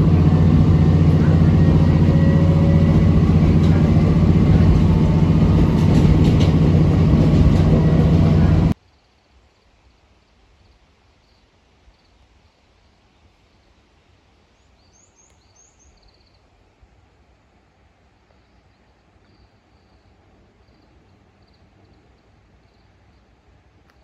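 Diesel railcar running, heard from inside the passenger cabin: a loud, steady engine drone with running noise, which cuts off abruptly about nine seconds in. What follows is faint outdoor quiet with a few high bird chirps.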